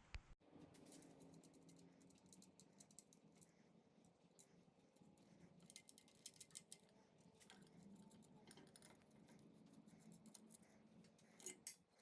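Near silence with faint, irregular small clicks and ticks, like light handling of tools or parts.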